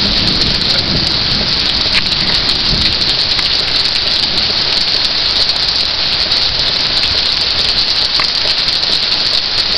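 Heavy rain pouring down steadily, an even hiss with a single drop ticking now and then.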